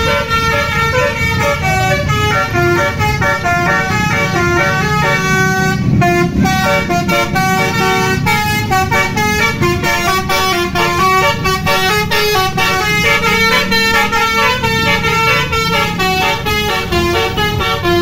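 A Basuri telolet musical horn on a Mercedes-Benz OH 1526 bus playing a fast melody of short stepping notes, over the low rumble of the bus engine and traffic.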